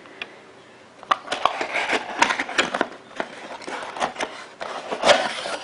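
Hands handling and opening a small corrugated cardboard box: after a quiet first second, irregular rustling, scraping and clicks of the cardboard flaps.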